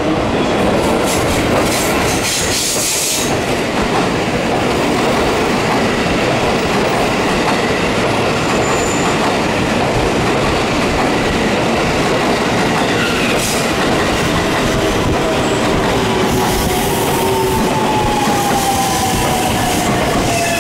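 JR West 223 and 225 series electric train running in along the platform with a loud, steady rumble of wheels on rail. Near the end a whine falls in pitch as the train slows for its stop.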